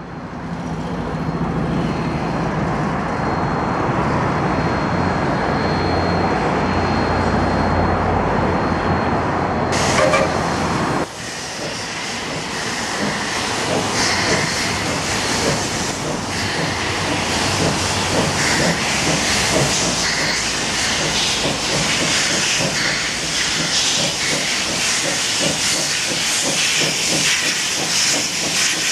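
Steam locomotive moving slowly with its cylinder cocks open, steam hissing in a steady pulsing beat. About ten seconds in, the sound changes abruptly from a deeper rumble to the brighter hiss.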